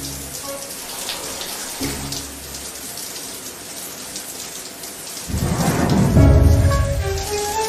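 Steady hiss of falling water, as from a shower spray, under soft music. About five seconds in, a deep rumble swells up and fades away near the end.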